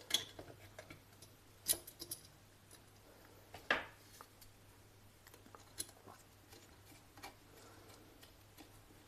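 Scattered light clicks and taps of a wire and small hand tool being worked at the terminal of a plastic power-plug board, as the supply wire is fixed to the fuse terminal. A faint steady low hum runs underneath.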